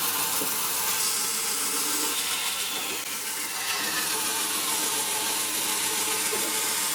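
Industrial band saw running through timber: a steady hissing saw noise, with a faint whine sliding down in pitch about two seconds in.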